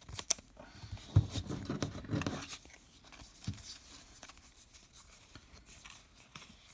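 Baseball card pack wrapper crinkling and tearing open, with the cards rustling as they are handled; a couple of sharp clicks at the very start and the loudest crinkling about a second in, then lighter rustling.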